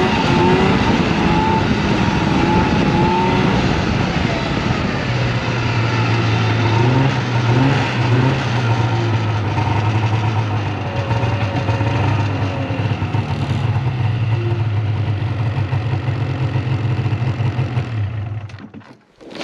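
Polaris snowmobile engine running under way, its pitch rising and falling with the throttle, then settling into a steady low hum as the sled slows, and cutting off shortly before the end.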